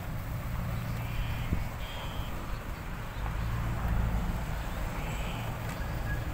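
Diesel engine of a low-bed truck running at low revs as it reverses slowly with an excavator on its trailer, a steady low rumble that swells briefly about four seconds in.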